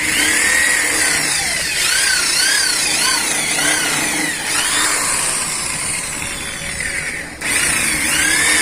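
Handheld electric power tool abrading the bead line on the side of an auto-rickshaw tyre, to prepare it for tubeless use. Its pitch rises and falls about twice a second as the tool works against the rubber, with a brief break about seven seconds in.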